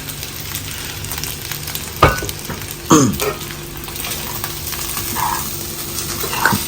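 Fried rice sizzling steadily in a hot pan, with a couple of sharp clacks about two and three seconds in.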